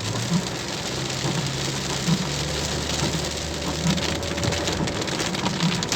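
Heavy rain pattering on a car's body and windscreen, heard from inside the cabin as a dense, steady hiss, over a low, steady hum from the car.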